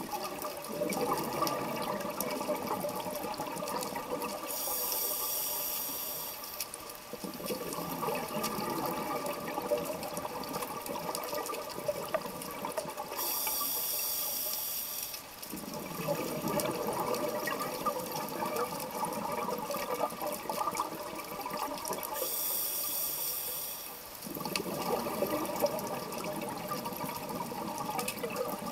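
A scuba diver breathing through a regulator underwater. Each exhale is a few seconds of bubbling, and each inhale is a short hiss from the regulator. The cycle repeats about every eight to nine seconds, with three inhales.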